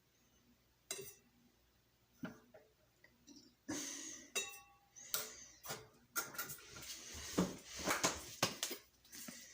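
Kitchenware being handled: a series of clinks and knocks, a few with a short ring, sparse at first and coming thick and fast in the second half.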